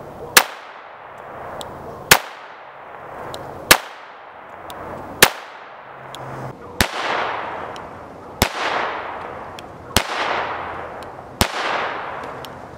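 Browning Buck Mark UDX .22 LR pistol firing CCI Mini Mag rounds: eight evenly paced shots about a second and a half apart, each a sharp crack. The last four ring out longer.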